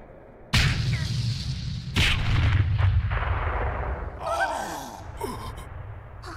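Anime fight sound effects: two heavy booming impacts, the first about half a second in and the second about two seconds in, each followed by a deep rumble that slowly fades.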